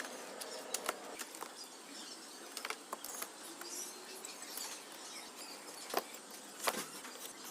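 Scattered light clicks and taps of small tools and parts being handled on a workbench during circuit-board repair, over a low steady hiss.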